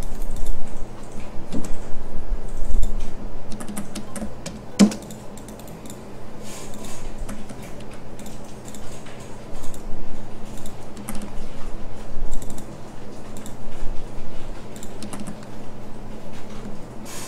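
Computer keyboard keystrokes and clicks, scattered and irregular, with one sharper click about five seconds in, over a steady low hum.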